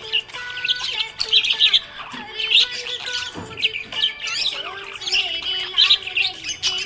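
Budgerigar chirping and warbling without a break: a rapid, busy run of short twittering chirps and squawks.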